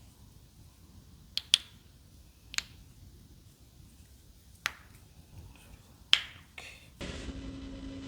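Joints popping under chiropractic adjustments: about six sharp, separate cracks spread over several seconds, the loudest two about a second and a half and six seconds in. Near the end a steady low hum comes in.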